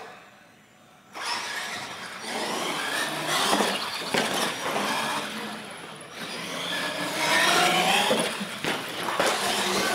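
Radio-controlled monster trucks launching about a second in, their motors whining and tyres rushing over the floor, with a knock around four seconds in as a truck lands off a ramp and more knocks near the end.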